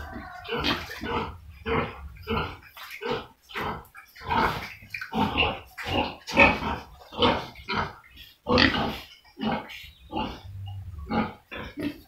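Several domestic pigs grunting in a rapid string of short calls, roughly two a second.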